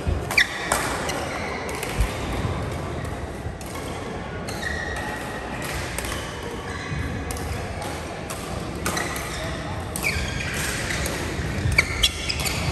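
Badminton play on an indoor court: a few sharp racket-on-shuttlecock hits and short sneaker squeaks on the court floor, with a cluster of hits near the end.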